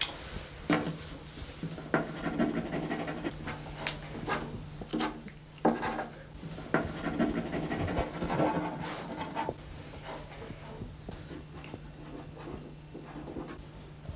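Paper and a pen handled on a wooden table: scattered rustling, scraping and a few sharp knocks, over a steady low electrical hum. The handling dies down about ten seconds in, leaving only faint ticks and the hum.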